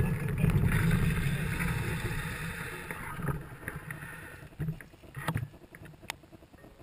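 Low wind rumble and handling noise on an action camera's microphone, dying away to faint, with a few sharp knocks past the middle and a click near the end.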